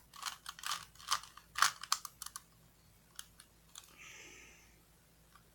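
Rubik's cube layers being twisted by hand: a quick run of clicks in the first two seconds or so, then a couple of single clicks and a brief soft hiss about four seconds in.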